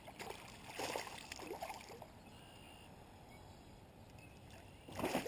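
Water splashing and sloshing beside a kayak as a small northern pike thrashes at the surface on the line, with a few splashes in the first couple of seconds and a louder one near the end.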